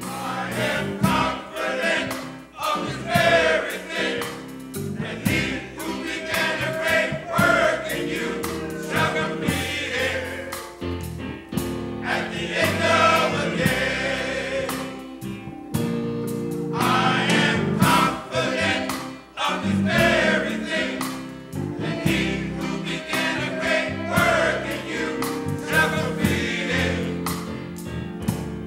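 Men's gospel choir singing, with sustained notes and phrases that rise and fall in loudness.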